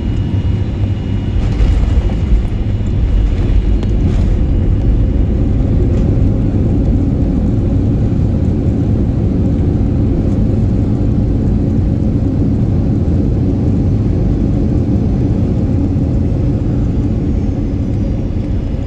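Steady low rumble inside the cabin of a Boeing 737-800 rolling out on the runway after landing, its wheels running on the pavement and the engines spooled down. A faint high whine fades out about four seconds in, with a couple of light knocks near the start.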